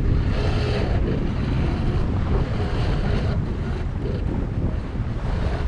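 Wind buffeting the microphone over the rush of water along a sailing yacht's hull under way, with a few brighter washes of water passing by.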